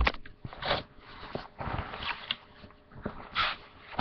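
Rummaging through a grooming box: items being moved about, with irregular rustling and light knocks.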